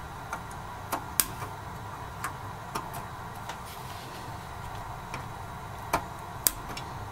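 Side cutters snipping through the legs of a suspected faulty 7414 logic chip on a pinball CPU board, one pin at a time: about a dozen sharp, irregular clicks. The loudest cuts come about a second in and near the end.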